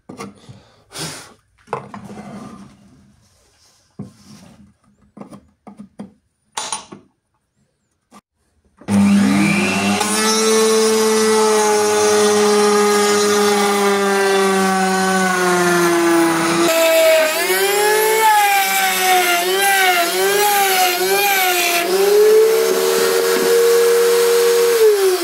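Router table motor spinning up with a rising whine about nine seconds in, after a few light handling knocks and clicks, then running at speed while a straight bit cuts grooves in a wooden board. Midway its pitch drops and wavers as the bit bites into the wood under load, then it settles back to full speed and starts to wind down at the very end.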